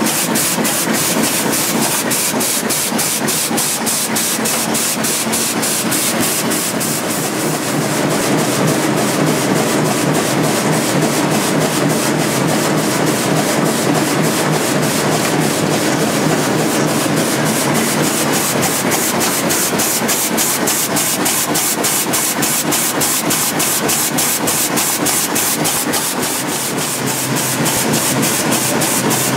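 EPS cup printing machine running: a steady mechanical hum and hiss with a fast, even clicking a few times a second as it cycles.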